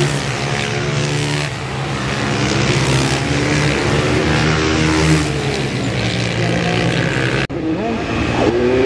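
Supermoto racing motorcycle engines revving hard, the pitch falling and rising as the bikes brake into a corner and accelerate out of it. About seven and a half seconds in the sound cuts off abruptly and another bike is heard revving.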